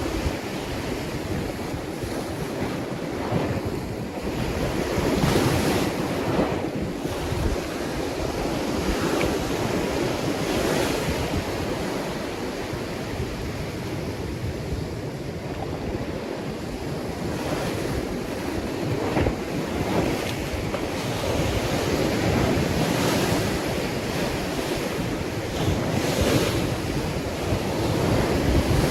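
Ocean waves breaking and washing in surf, swelling and easing every few seconds, with wind buffeting the microphone.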